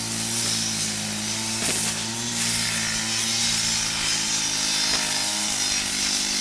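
An engine-driven spray rig running steadily, its pitch shifting slightly a couple of times, with the hiss of water spraying from a wand onto concrete.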